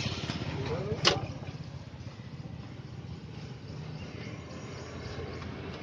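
A single sharp metallic clink about a second in, a steel spoon knocking against a steel serving plate, over a steady low rumble of traffic.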